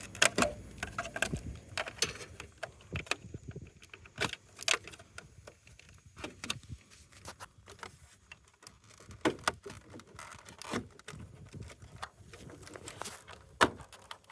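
Irregular clicks, knocks and small clattering of a washing machine's parts and wiring connectors being handled and pulled free by hand, with a few louder knocks about two, four, nine and thirteen seconds in.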